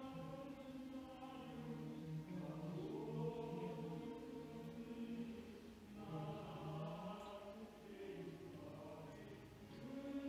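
A hymn sung together by a congregation, with voices holding long notes.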